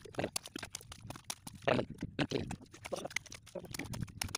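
A hand hoe (kodal) chopping and prying into cracked, sun-dried mud with wet clay underneath: a quick, irregular run of knocks and crunches as clods break loose.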